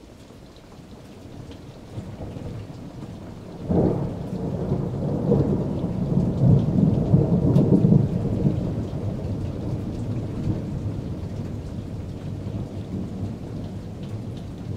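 A thunderstorm: steady rain with a roll of thunder that breaks suddenly about four seconds in, rumbles loudest for a few seconds, then slowly fades.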